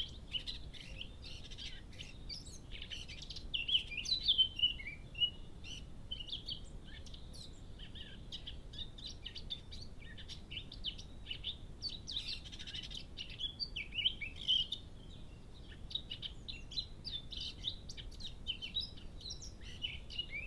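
Eurasian blackcap singing: fast, varied warbling phrases that come in bursts, loudest a few seconds in, again around twelve to fifteen seconds in, and at the end, with quieter chirps between them.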